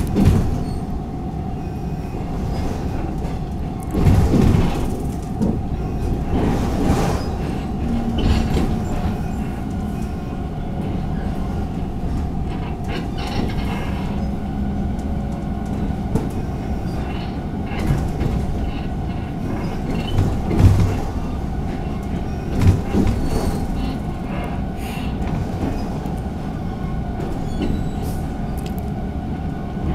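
Taiwan Railways EMU600 electric multiple unit running, heard from inside the carriage: a steady rumble of wheels on rail with a constant hum. A few louder knocks and rattles break in, one about four seconds in and several more in the second half.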